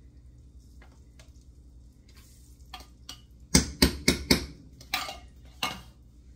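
A metal can of condensed cream of broccoli soup being emptied into a skillet: a few faint clicks, then about halfway in a quick run of about five sharp metal knocks, and two more a little later, as the can is knocked against the pan to shake out the thick soup.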